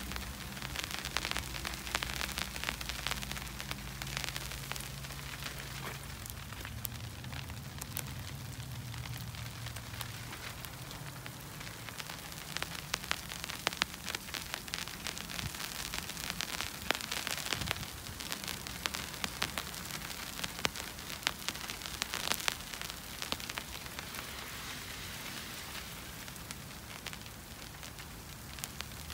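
Snow falling on an umbrella: a dense, steady patter of fine ticks with sharper individual taps scattered through it. A low hum sits underneath for roughly the first twelve seconds, then fades.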